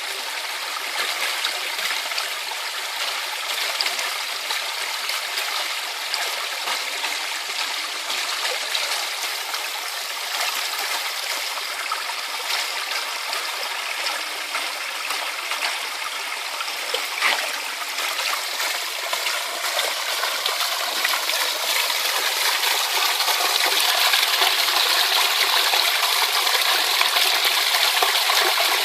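Mountain stream running over rocks: a steady rush of water with many small splashes and gurgles, growing a little louder after about twenty seconds.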